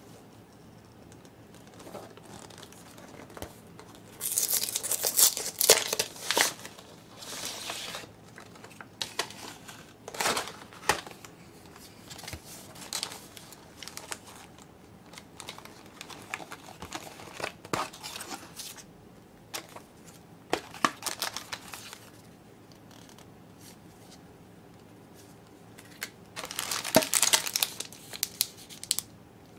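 A paperboard box being opened and its cellophane packets handled: rustling and crinkling of plastic wrap and paper, with short tearing sounds. It comes in several separate bursts, the longest and loudest near the end, as a bag of dried animal-shaped ramen noodles is crinkled in the hand.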